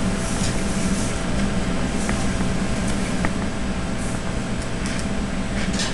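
Commercial kitchen exhaust hood fan running steadily with a low hum. Faint clicks and a few short hisses come from tongs moving kielbasa on a grill.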